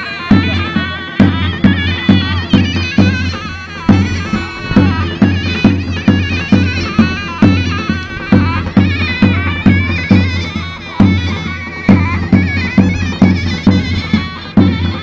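Turkish folk dance music: a shrill, ornamented reed-pipe melody played over a steady bass drum beat.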